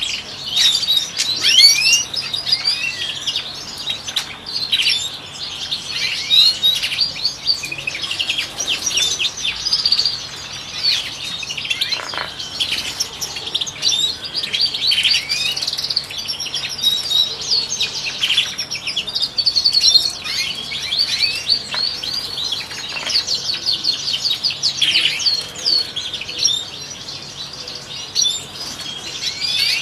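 European goldfinches twittering and singing, many quick high notes overlapping in a continuous chatter.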